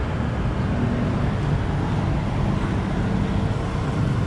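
Road traffic on a busy highway: a steady wash of passing vehicle noise with a low engine hum under it.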